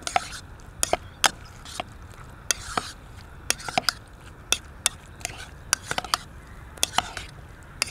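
A metal spoon clicking and scraping against a bowl while stirring sliced squid and fruit in a thick miso sauce. Sharp clicks come irregularly, a few a second, with soft wet squishing of the mixture between them.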